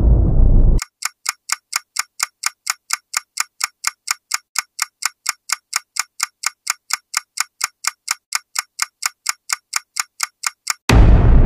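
Countdown-timer sound effect: a loud boom cuts off, then a clock ticks evenly and sharply, about four ticks a second, for about ten seconds. Near the end a loud explosion boom comes in abruptly.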